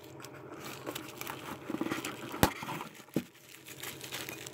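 Plastic wrapping crinkling and cardboard rustling as hands work packaged items out of a compartmented cardboard box. A sharp tap comes about two and a half seconds in, and a smaller one just after three seconds.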